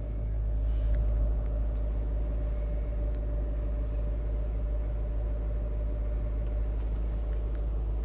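Range Rover L322's engine idling, heard from inside the cabin as a constant low rumble with a steady hum.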